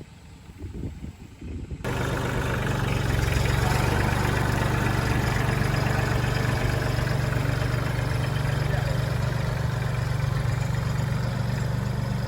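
Four-wheeler (ATV) engine running steadily with a constant low hum. It cuts in abruptly about two seconds in, after a faint low rumble.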